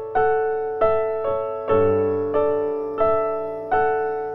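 Background music: a slow solo piano piece, single notes struck about every half second to a second, each ringing and fading.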